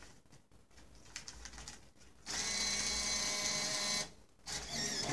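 Banknote acceptor of a BATMTwo Bitcoin ATM drawing in a banknote: a steady motor whir that starts about two seconds in and stops abruptly under two seconds later.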